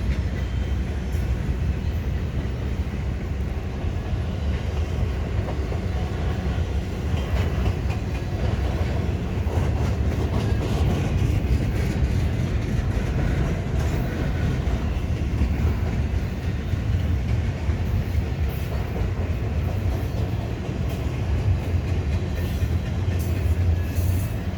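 Freight cars of a BNSF intermodal train rolling past: a steady rumble of steel wheels on the rails, with faint clicks from the rail joints.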